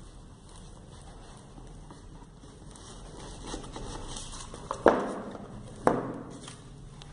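Rustling and scraping of a cardboard box and its foam packaging insert being handled, with two sudden loud scrapes about five and six seconds in as the foam insert is pulled out of the box.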